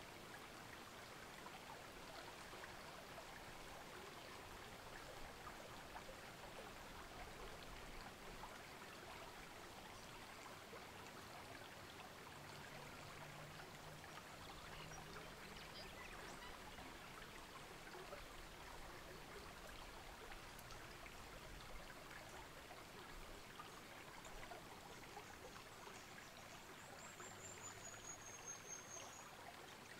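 Faint, steady trickle of a shallow bush creek, with a single brief high whistle near the end.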